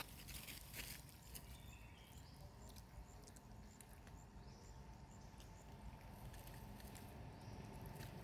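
Near silence: faint outdoor ambience, with a few soft clicks in the first second.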